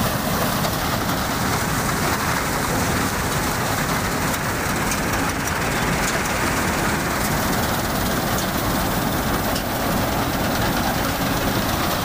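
Combine harvester running at a steady level as it cuts standing rice: a dense mechanical noise from the engine and the cutting header.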